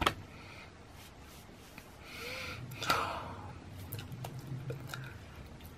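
Sounds of a person signing. A sharp slap as a flat hand meets the chest at the start, a short breathy exhale about two seconds in, and another sharp slap just before the three-second mark, with small taps and mouth and breath sounds between.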